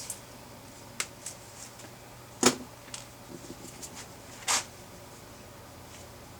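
Wire stripper at work on speaker wire: a few sharp clicks, the loudest about two and a half seconds in, and a short scraping snip about four and a half seconds in as the insulation is stripped.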